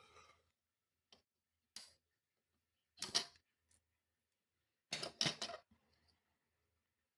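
Sharp clicks and taps of small tools and electronic parts being handled on a workbench during circuit board assembly: single clicks spaced a second or so apart, then a quick cluster of three or four about five seconds in.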